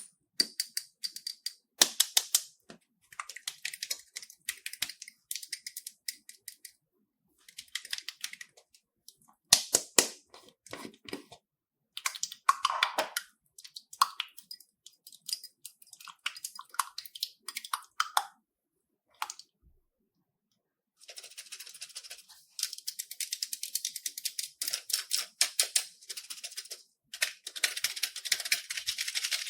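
Slime being handled by hand, giving bursts of sticky crackling and clicking, with a few short breaks of silence.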